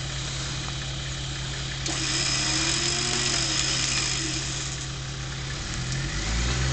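Nissan Patrol 4x4's engine idling steadily while its bull-bar-mounted electric winch hauls the vehicle up over rocks, the winch motor whining under load. Near the end the engine note changes and rises.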